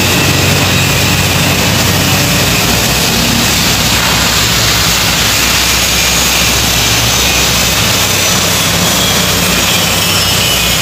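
Steady loud machine noise: an even rushing hiss over a low hum that shifts slightly in pitch, with no distinct strikes.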